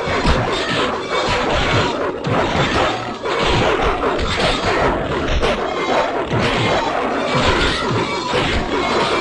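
A fight sound effect: a dense, continuous scramble of crashes, whacks and thumps that never pauses.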